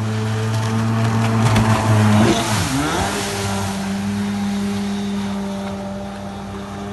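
Sea-Doo XP 720 jet ski engine running steadily. It gets loudest about two seconds in, with a brief swing in pitch and a rush of spray hiss, then settles to an even drone.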